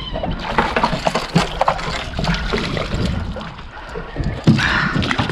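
Water sloshing against a small fishing boat, with scattered knocks and rattles and a louder splash-like stretch near the end.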